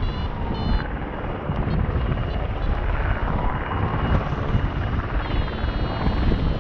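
Airflow rushing and buffeting over the microphone of a paraglider in flight. Short high electronic beeps from the flight variometer sound near the start and again near the end.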